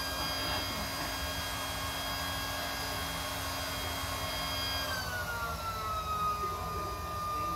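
Small battery-powered portable air pump running steadily, inflating an inflatable kayak, with a motor whine. About five seconds in the whine drops in pitch and settles lower.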